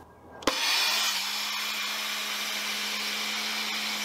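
Teande electric pressure washer switching on suddenly about half a second in, then running steadily: its motor hums under the hiss of the water jet spraying into a bucket. This is a timed flow test, and the washer is delivering about 800 PSI and roughly 1.25 gallons per minute.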